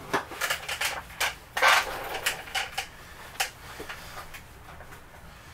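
A chrome toaster being handled and wiped with a cloth on a workbench: irregular clicks and knocks of metal, with a few short rubbing swishes, mostly in the first three seconds or so.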